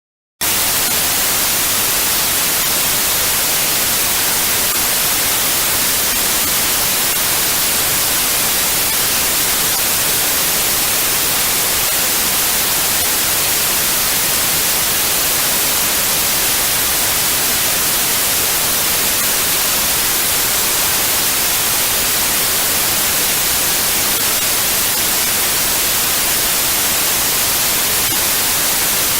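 Electronically generated white noise: a steady, even hiss that starts abruptly about half a second in and holds a constant level.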